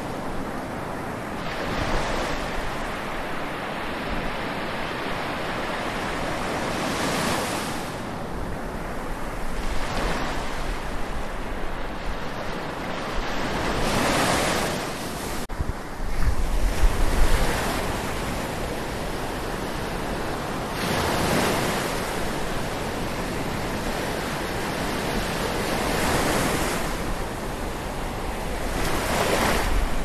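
Atlantic Ocean waves washing onto the shore: a steady rush that swells and falls back every few seconds as each wave comes in. Wind buffets the microphone with low rumbles about halfway through and again near the end.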